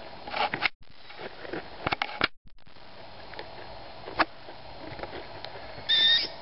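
Short rustles and clicks of a handheld camera being handled, then near the end a single short, high, squeaky call from the young owl perched in the tree.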